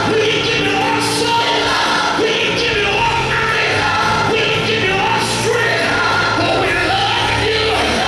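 Live gospel music: a male soloist singing into a microphone over a choir and band accompaniment.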